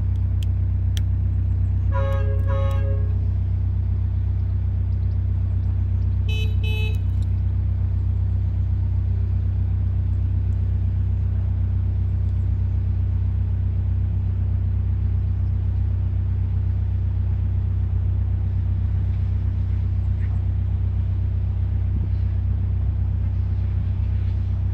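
Narrowboat diesel engine running with a steady low, pulsing rumble. Two short toots sound over it, about two seconds in and again around six and a half seconds.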